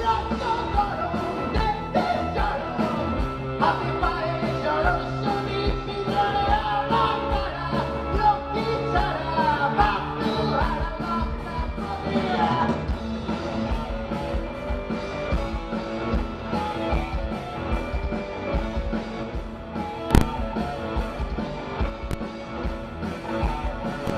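Rock band playing live with a singer: electric guitar, drums and vocals. A single sharp click about 20 seconds in.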